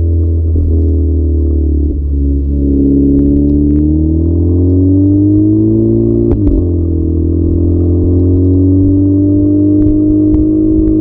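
Seat Ibiza Cupra Bocanegra's 1.4 TSI four-cylinder on the stock exhaust, pulling under acceleration. The engine note climbs and drops sharply at DSG upshifts about two and six seconds in, then rises again and levels off, over a steady deep drone.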